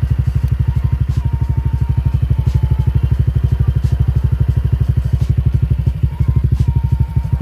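Honda Vario 125 scooter's single-cylinder four-stroke engine idling through an SKR aftermarket 'standar racing' muffler on a 28 mm header. It gives an even, fast, deep putter at steady revs.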